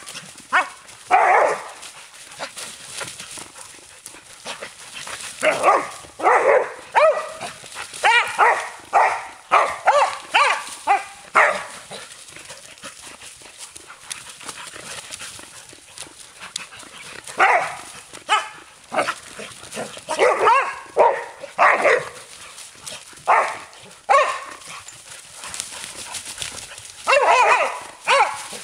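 Entlebucher Mountain Dogs barking in play, short barks in quick runs: one about a second in, a long run from about five to twelve seconds, more from about seventeen to twenty-three seconds, and again near the end.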